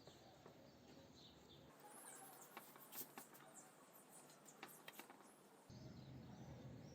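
Near silence: faint room tone with a few short high chirps and light ticks.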